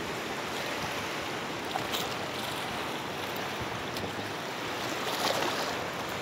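Steady noise of river water flowing past a stony bank, with a few brief light clicks.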